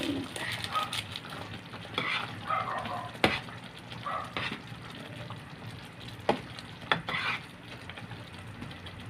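A spatula stirring thick tomato spaghetti sauce with hotdog pieces in a metal pot on the stove: wet scraping and squelching, with three sharp knocks against the pot about three, six and seven seconds in.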